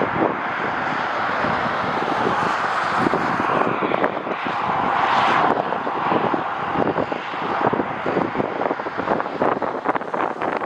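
Jet airliner's engines passing, a rushing roar that swells to its loudest about five seconds in and then eases off, with gusty wind buffeting the microphone throughout.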